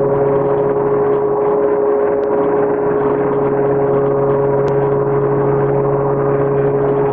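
Loud, steady drone of stamping-plant machinery: a constant hum tone over an even mechanical noise that does not change.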